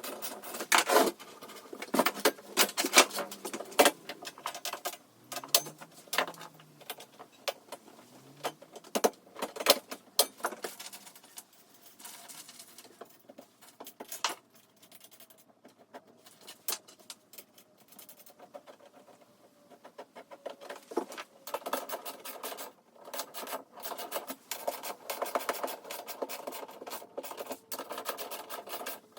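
Parts of a dust extractor being handled and fitted together: irregular clicks, knocks, rattles and scraping of plastic and metal pieces, with a denser stretch of rapid rattling near the end.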